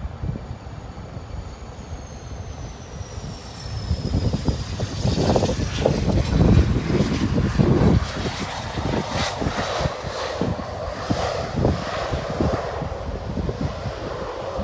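Business jet's turbofan engines passing close on landing: a high whine that falls in pitch as the jet goes by, over a low rumble that grows louder about four seconds in.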